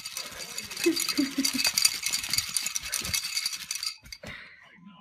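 Busy, continuous rattling and clinking, dense with quick clicks, dying down about four seconds in.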